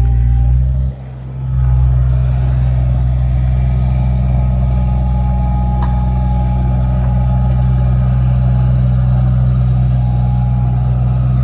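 Diesel engine of a Volvo EC20E mini excavator running at a steady speed, with a brief dip in level about a second in.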